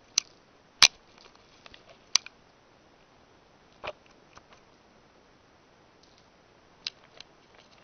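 A few short, sharp clicks and taps at irregular moments, the loudest about a second in and a duller tap near the middle, against quiet room tone.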